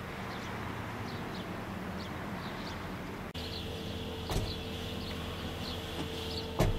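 Nissan GT-R's twin-turbo V6 idling steadily, with small birds chirping. Two short knocks come through, the louder one near the end.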